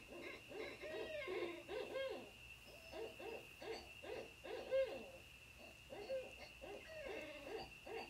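Owls hooting: short hoots in quick groups, each sliding up and down in pitch, over a thin steady high tone.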